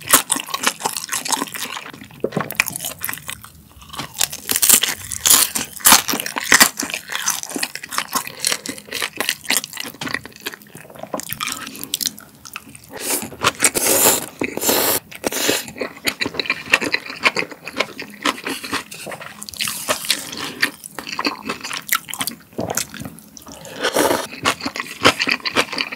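Close-miked eating: crunching and chewing a fried dumpling, then slurping spicy mul-jjolmyeon (chewy noodles in a thin sauce) about halfway through, with a slurp of the broth from the bowl near the end.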